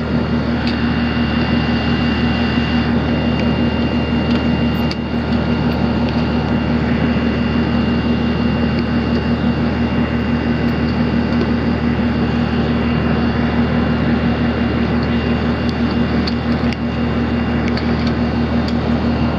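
Outdoor air-conditioning condensing unit running with a steady hum, with a couple of short knocks about five seconds in and again near the end.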